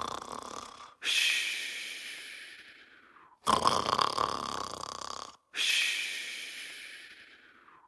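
Cartoon character snoring in a steady loop: a rough snore, then a long breath that fades away, twice over, with the snore starting again at the very start and about three and a half seconds in.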